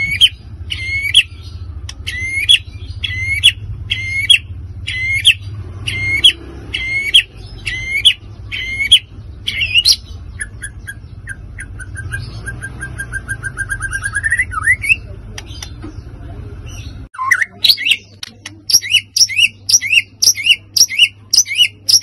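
White-rumped shama (murai batu) singing in fired-up 'emosi' form. It gives a run of sharp hooked notes about two a second, then a fast rattling trill for several seconds that ends in a rising note. After a short break come quicker repeated notes.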